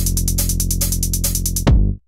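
Electronic intro music: a held low synth chord under a fast, even ticking beat, with a heavy drum hit coming in near the end.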